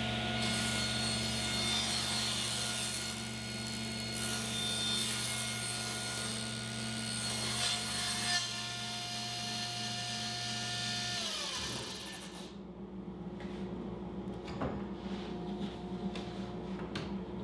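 Table saw running with a steady motor hum while a wide sheet of plywood is pushed across it, with a sharp jolt about eight seconds in as the plywood binds against the blade. About eleven seconds in the saw is switched off and the motor and blade wind down in a falling hum, followed by light knocks of the plywood being handled.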